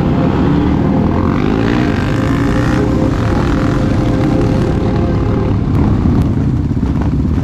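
Supermoto motorcycle engine running under way, its pitch sweeping upward as it revs through the gears between about one and three seconds in, over a steady low rumble.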